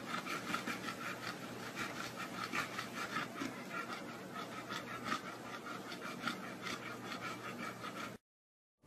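A pit bull-type dog panting rapidly and evenly, several breaths a second, close up; it cuts off about eight seconds in.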